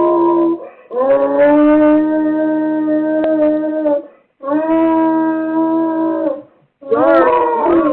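A dog howling in long, steady held notes: one howl trails off, then come a howl of about three seconds and one of about two seconds, and a shorter wavering howl near the end. It is the distressed howling of a dog left home alone. The sound comes through a home security camera's microphone, with a thin, narrow tone.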